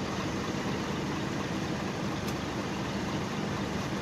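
Heavy diesel engines of farm tractors and a truck idling, a steady low hum.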